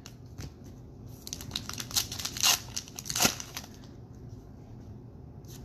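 Baseball trading cards being handled and sorted by hand: a run of light clicks, rustling and crinkling, busiest around the middle, thinning out near the end.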